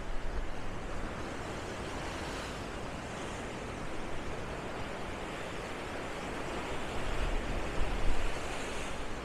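Atlantic surf washing onto the shore, a steady rushing that swells twice, the second time louder, with wind buffeting the microphone at the start and near the end.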